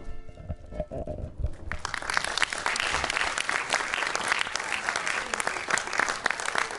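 Audience applauding: the last held note of the music fades at the very start, then the clapping swells about two seconds in and stays strong.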